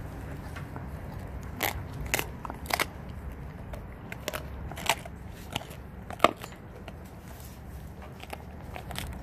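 A dog crunching on a raw whitetail deer leg, its teeth cracking through skin and bone in sharp, irregular crunches, the loudest about six seconds in.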